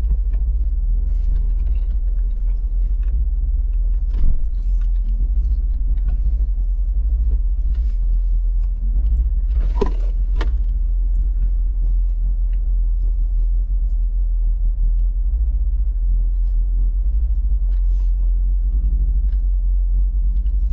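Vehicle driving slowly over a rough dirt mountain road: a steady low engine and road rumble with scattered knocks and rattles, including a louder knock about four seconds in and a couple of sharper ones about ten seconds in.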